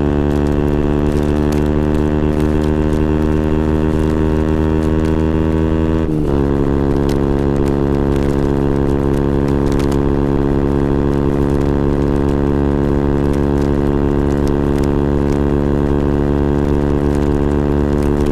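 KTM Duke 125's single-cylinder four-stroke engine running through a Scorpion exhaust with the dB killer removed, heard onboard while riding. It holds steady revs, with a brief dip in pitch about six seconds in before settling steady again.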